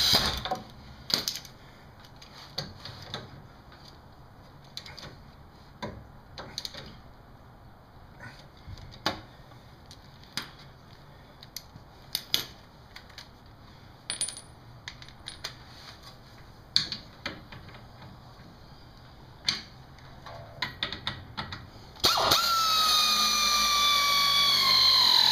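Scattered light clicks and clinks of metal tools and parts being handled. Near the end a pneumatic air ratchet starts running on a sway-bar-to-lower-control-arm bolt, its whine falling steadily in pitch as the bolt runs down and tightens.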